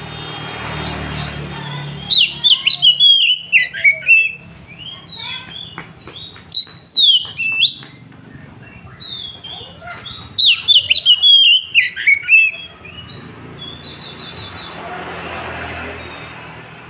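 Oriental magpie-robin singing in loud bursts of rapid, sliding whistled notes, in three bouts of one to two and a half seconds each. A low road hum rises at the start and again near the end.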